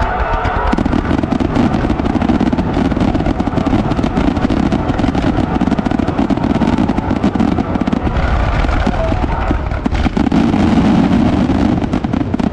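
Fireworks going off in a continuous barrage of dense crackling and bangs.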